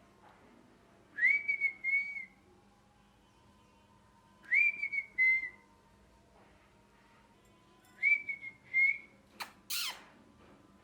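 Ringneck parrot giving whistled calls: three bouts of two clear whistled notes, each swooping up and then held, about three seconds apart, followed near the end by a loud, harsh, falling screech.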